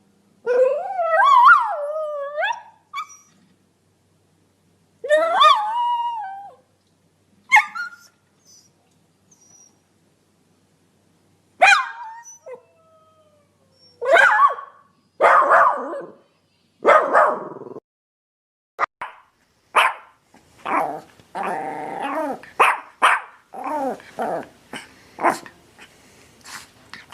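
Dog barking and howling. Two long howls that waver up and down in pitch come first. After them come single sharp barks a second or two apart, then a fast run of barks near the end.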